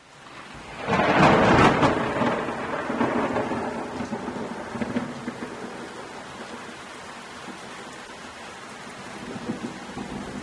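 Thunder: a loud crack about a second in that rolls on as a long rumble, dying away over several seconds into a steady hiss, with a few smaller rumbles later.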